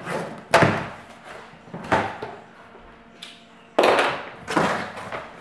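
Cardboard shipping box for a PC case being opened and handled: a series of scraping, rustling handling noises, about five of them, the loudest about half a second in and near four seconds.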